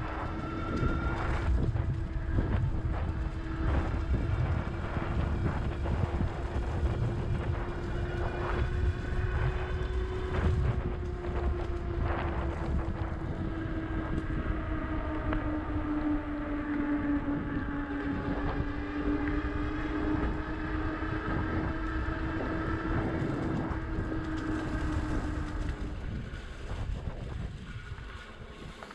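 Engwe Engine Pro 2.0 e-bike's rear hub motor whining steadily under power, with wind rushing over the microphone. The whine fades out near the end as the bike slows down.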